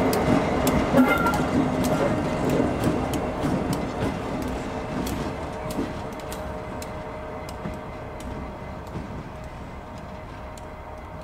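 Diesel-hauled passenger train, top-and-tailed by 37409 and 70005, running along the line and moving away. Its rumble fades steadily, with irregular sharp clicks of wheels over the track.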